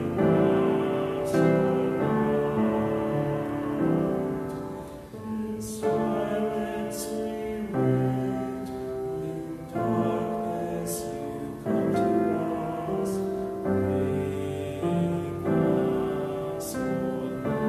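Slow, solo piano playing sustained chords that change about every two seconds.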